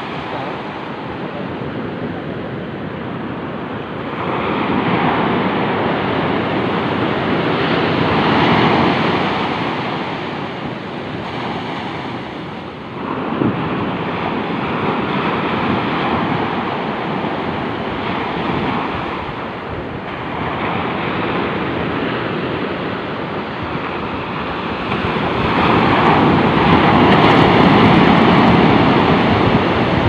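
Ocean waves breaking on a sandy beach: a continuous roar of surf that swells and ebbs every several seconds, rising sharply about halfway in and loudest near the end.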